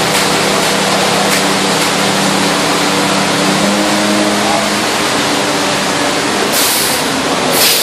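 Concrete mixer truck's diesel engine running steadily at raised revs to turn the drum while concrete is discharged down the chute, its pitch rising slightly about halfway through. Two short bursts of hiss near the end.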